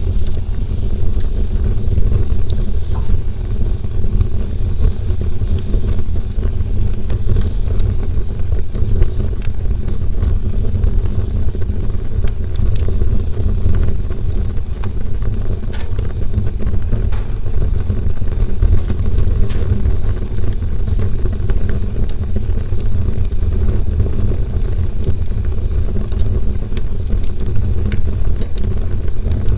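Campfire burning: a steady low rumble with scattered sharp crackles and pops from the burning wood.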